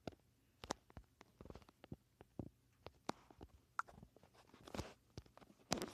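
Handling noise: irregular clicks and taps with a few short rustling swishes, from a phone camera being moved about close over fabric and a hank of orange paracord.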